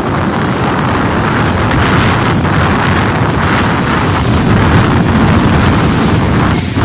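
Radio-controlled racing speedboat running flat out across the water, its engine heard as a steady, loud noise, mixed with wind buffeting the microphone.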